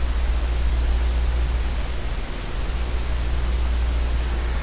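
Steady hiss with a strong low electrical hum: the background noise of an open microphone recording a computer screencast.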